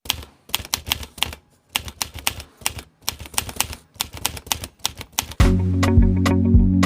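Typewriter-style typing clicks in quick, uneven runs with short pauses. About five seconds in, music with a steady bass line and a beat starts abruptly.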